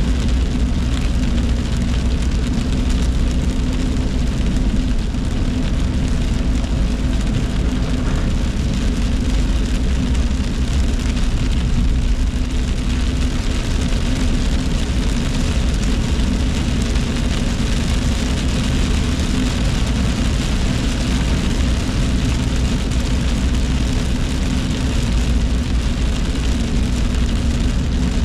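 Steady car road noise heard from inside the cabin while driving in heavy rain: a low engine and tyre rumble with the hiss of tyres on the wet road and rain on the windshield.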